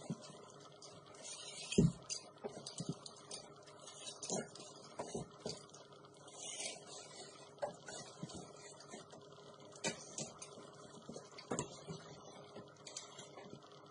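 Foam carpet pad being handled and worked by hand on a concrete floor: irregular soft knocks and scuffs with a couple of brief rasping sounds, the loudest a low thump about two seconds in.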